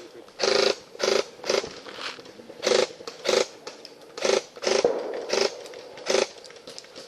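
Airsoft electric gun (AEG) firing about nine short bursts at uneven spacing, each a brief mechanical whirring buzz of the gearbox cycling.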